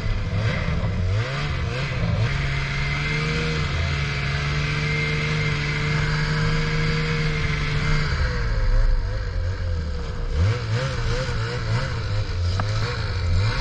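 Ski-Doo Summit 600R E-TEC two-stroke snowmobile engine running under way through snow over a steady hiss. The throttle is held steady for several seconds, then blipped up and down over the last few seconds as the sled is eased along.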